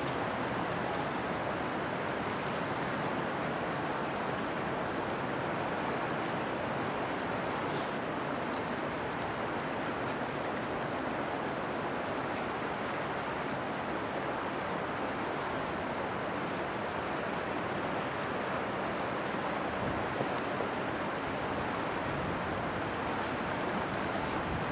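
Steady rushing noise of river water and wind on the microphone, with a few faint short high chirps.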